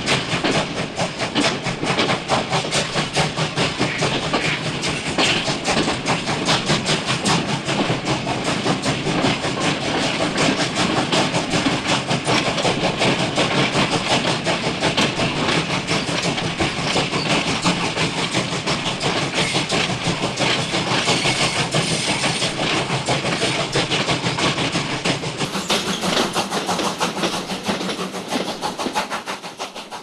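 Steam locomotive running at speed, its exhaust chuffing in a fast, even rhythm of about three to four beats a second, fading away near the end.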